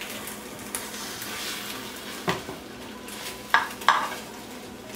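Egg and bread sizzling in a frying pan while a metal spatula scrapes and pushes them to flip the toast. Three sharp knocks of the spatula against the pan sound about two, three and a half and four seconds in.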